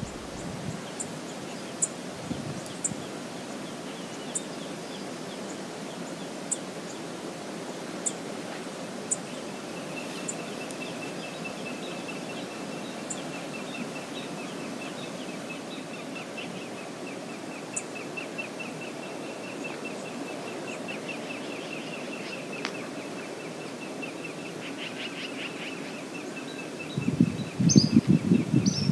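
Steady rush of flowing river water, with a bird's fast repeated high call from about ten seconds in and scattered sharp high ticks. A louder rough burst of noise breaks in near the end.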